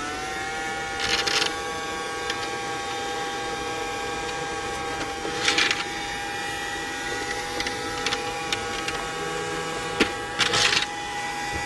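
Small battery-powered robot vacuum cleaner's motor running with a steady high whine. Three short rustling bursts come about a second in, midway and near the end.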